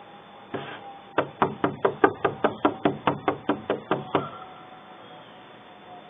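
A rapid run of about fifteen sharp knocks, about five a second, lasting some three seconds.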